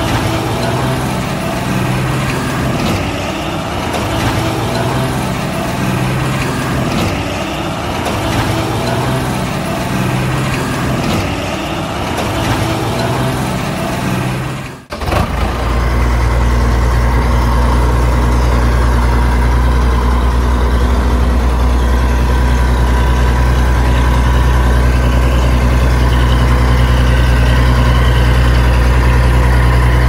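Heavy vehicle engine running with a pulsing, uneven note. About halfway through it cuts off suddenly and gives way to a steady, deep engine drone like a heavy engine idling.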